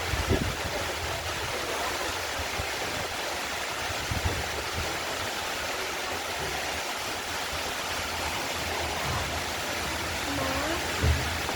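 Artificial waterfall: water falling and rushing steadily, with a few brief low thumps.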